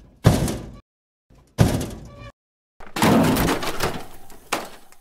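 Edited intro sound effects: sharp impact hits, each fading quickly, with dead silence between them. A longer noisy swell starts about three seconds in, and one more hit lands near the end.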